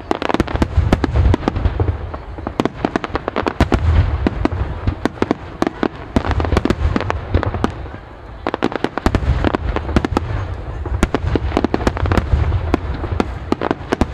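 Aerial fireworks shells bursting in a rapid barrage: many sharp bangs a second over a deep low rumble, easing briefly about eight seconds in.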